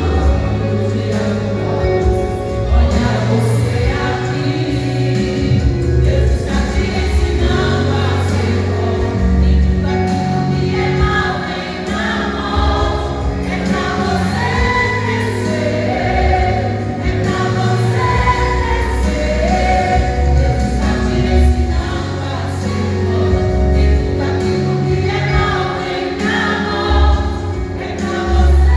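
A group of worshippers singing a gospel song together over a band with a strong bass line.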